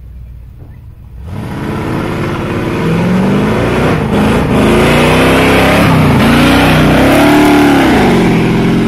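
Lifted pickup truck driving past under hard acceleration, its engine loud. The sound rises sharply about a second in, the engine note climbs, dips and climbs again, and it falls away near the end as the truck passes.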